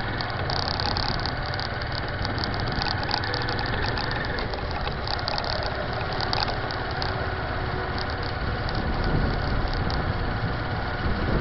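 Engine of a moving vehicle running steadily while it drives along a street, with road and wind noise and a flickering hiss over the top.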